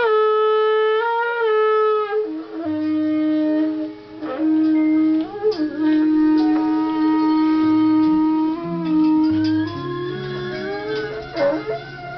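A beer bong's tube blown like a horn: loud, long held notes, the first sliding down in pitch, then dropping to a lower note held for several seconds. Quieter low notes change underneath every second or two.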